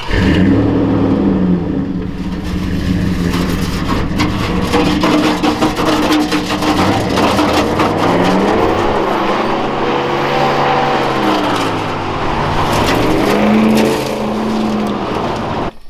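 Dodge Dakota pickup's V8 engine revving loudly as the truck is driven hard, its pitch climbing and falling several times. It cuts off suddenly near the end.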